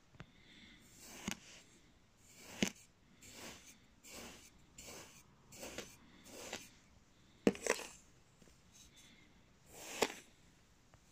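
Kitchen knife slicing through kinetic sand: a run of soft, gritty swishes about once a second, a few of them ending in a sharp click as the blade meets the hard surface underneath.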